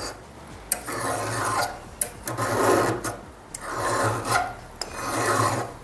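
Flat file rasping across the steel depth gauge of a 3/8 chainsaw chain, filing the raker down through a depth-gauge tool. About four strokes, each roughly a second long, several of them starting with a sharp click as the file meets the metal.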